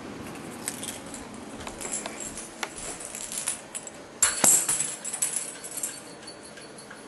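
A jingling cat toy being knocked about, in a run of quick jingles, rattles and taps that is loudest about four seconds in.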